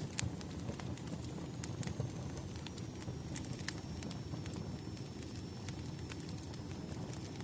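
Wood fire burning, a steady low rumble with irregular sharp crackles and pops from the logs.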